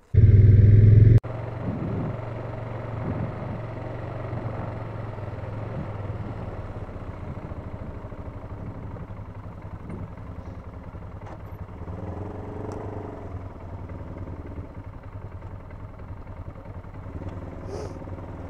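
Polaris Sportsman 570 ATV's single-cylinder engine running at low speed. There is a brief loud low rumble at the start that cuts off abruptly, then a steady engine hum that rises a little in pitch about two-thirds of the way through.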